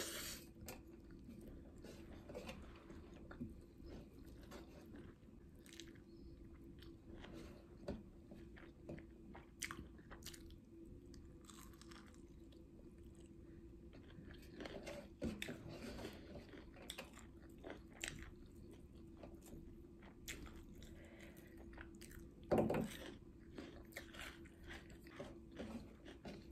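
Close-miked eating sounds: chewing and biting of rice, pork and greens eaten by hand, with scattered small wet clicks and crunches, over a faint steady hum. One louder knock comes late on.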